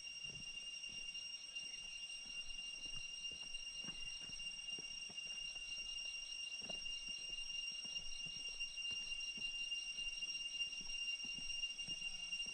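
A rainforest insect giving a steady, high, whistling, siren-like call. A second, rapidly pulsing call joins it from about halfway through.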